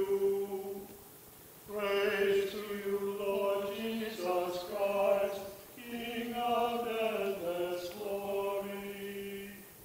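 A man's voice chanting a liturgical text in plainsong before the Gospel reading. The chant holds level notes, breaks off briefly about a second in, then resumes in long sustained phrases.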